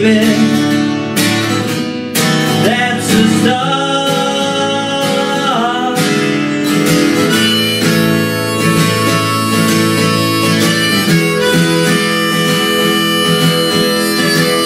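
Harmonica solo, with some notes bent and sliding, played over a strummed twelve-string acoustic guitar in a blues song.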